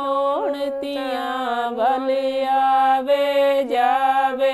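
Women's voices singing a Punjabi folk song (lok geet), holding long notes with ornamental pitch turns.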